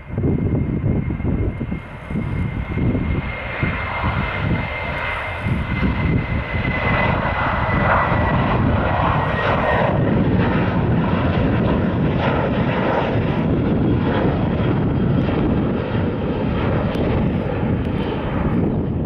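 Boeing 737's twin CFM56 jet engines at takeoff thrust as it rolls and lifts off: a rising jet noise with a high whine that slowly falls in pitch over the first ten seconds, then a steady loud rumble as it climbs away.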